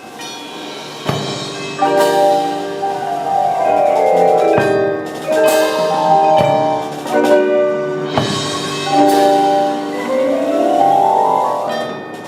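High school marching band playing its field show: sustained chords with sweeping pitched runs, one falling and, near the end, one rising, punctuated by percussion hits, with the front ensemble's mallet instruments ringing. The music swells about a second or two in.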